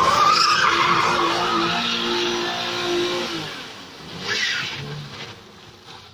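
BMW 5 Series saloon doing a burnout in circles: the engine is held at high revs while the spinning rear tyres squeal and skid on asphalt. The sound fades over the last couple of seconds, with a brief swell partway through.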